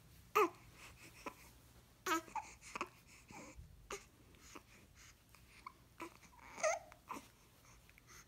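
Newborn baby fussing: short, separate squeaky whimpers and cries every second or two, the loudest near the start.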